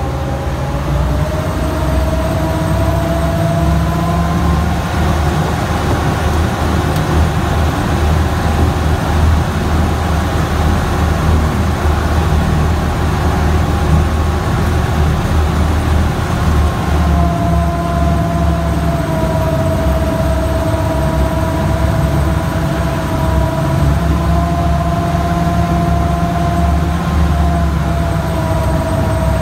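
The engine of an amphibious WWII-style DUKW "Duck" running steadily under way on the water, heard from the open passenger compartment. A loud low drone carries a whining tone on top that shifts slightly in pitch a few times.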